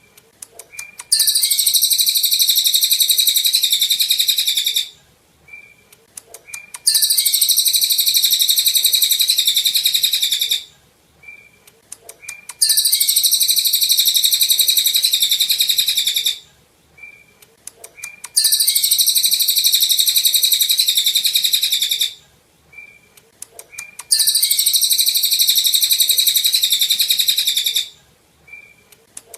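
Cililin songbird singing: a very high, rapid, dense twittering song about four seconds long, repeated about every six seconds, with a few short clear whistled notes in each pause. The same phrase comes round again and again, as in a looped masteran recording made to teach caged songbirds.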